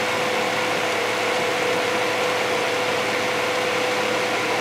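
Steady hum of a submersible's onboard machinery heard from inside the cabin: a constant mid-pitched drone over an even hiss.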